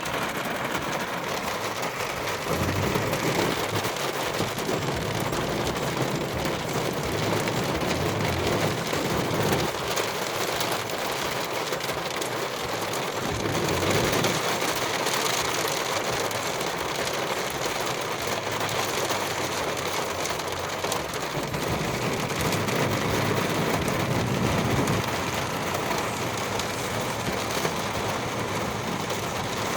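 Heavy rain and hail pelting down in a steady, dense hiss, with a few low rumbles swelling and fading.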